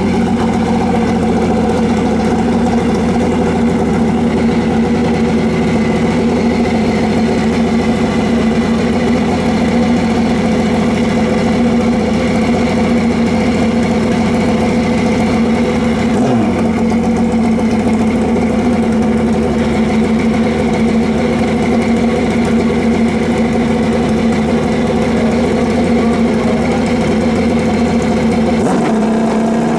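Drag-racing motorcycle engine running loudly and steadily at the start line, with a brief blip of the throttle about halfway through.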